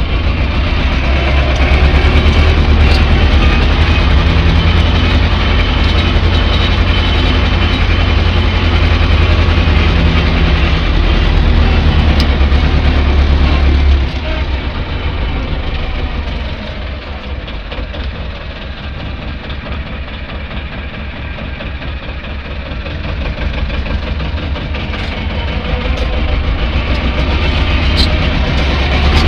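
The two-cylinder air-cooled diesel of a T-25 Vladimirets tractor running under way, heard from the driver's seat. It is loud and steady at first, drops suddenly in level about halfway through, then builds up again near the end.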